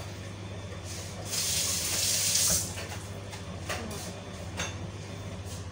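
Kitchen tap turned on into the sink, running for about a second and then shut off, followed by a couple of light clatters.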